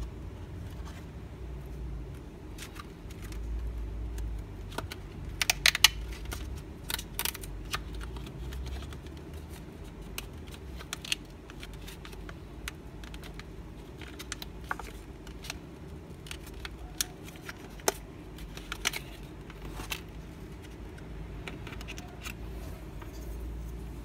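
Plastic blister pack of an ADATA DDR4 laptop RAM module being handled and opened: scattered clicks and crackles of plastic, densest and loudest about five to seven seconds in, over a low steady hum.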